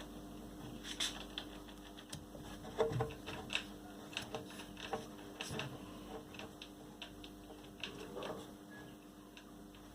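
Faint, irregular clicks and light taps of washing-machine parts being handled during reassembly, over a steady faint hum.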